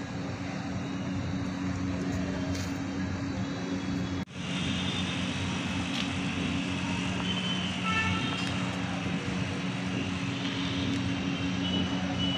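Steady drone of an engine running, with a brief dropout about four seconds in.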